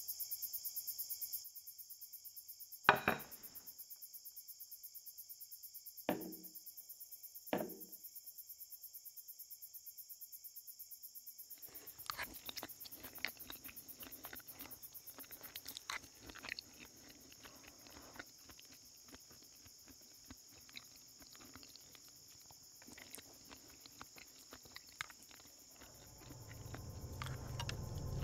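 Steady chirring of insects, broken by three sharp knocks in the first eight seconds. From about halfway there is a scattered crackle of small clicks, and near the end a low rumble swells up.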